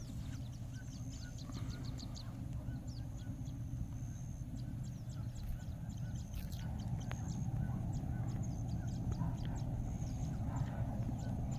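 Birds calling in quick, high, down-sweeping notes with a few held whistles, over a steady low rumble.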